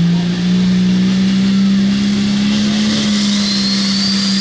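Turbocharged diesel engine of a Limited Pro Stock pulling tractor running hard under load down the pulling track, its pitch climbing slowly. A high turbo whine rises about three seconds in.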